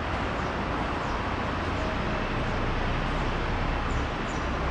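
Steady outdoor background noise with a fluctuating low rumble, and a few faint high chirps about four seconds in.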